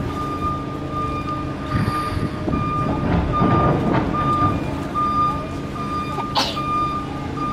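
A reversing alarm beeping at an even pace, one steady high tone switching on and off, over a low engine rumble. A short sharp sound comes near the end.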